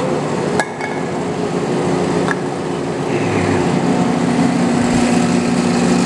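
Large lathe's electric drive motor and V-belt pulleys running steadily with a hum, the motor still running after the drive has jumped out of gear. Two sharp metallic clicks ring out, about half a second in and just after two seconds in.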